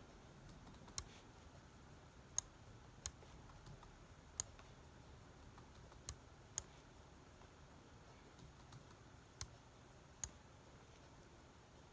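Computer mouse clicking: about eight sharp, single clicks at irregular intervals, over a faint low room hum.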